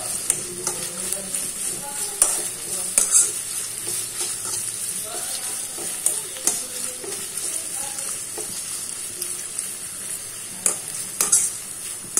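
Sliced onions sizzling in hot oil in a pan, being fried toward golden brown, with a steady hiss. A metal spatula stirs them, scraping and knocking against the pan now and then.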